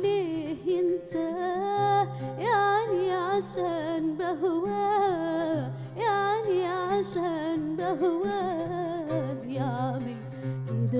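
A woman singing a long, ornamented Arabic melody line with a wavering, gliding pitch, accompanied by an oud.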